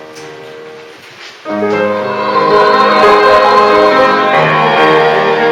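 Keyboard instrument playing held chords as a hymn introduction; a fuller, louder chord comes in about a second and a half in and holds.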